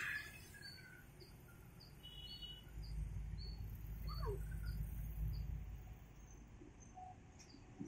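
A small bird calling with short high chirps repeated about twice a second. A car passing over the crossing adds a low rumble in the middle.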